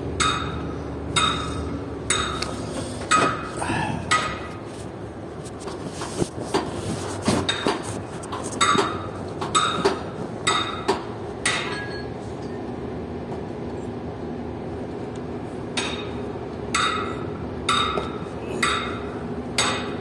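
Hammer blows on steel, each leaving a short metallic ring. They come in three runs of five or six strikes about a second apart, over a steady low hum.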